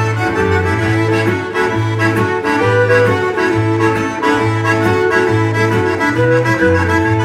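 Live Cajun band playing an instrumental tune: a diatonic button accordion leads, with a bowed fiddle and a strummed acoustic guitar. The bass notes alternate at a steady two-step pulse of about two a second.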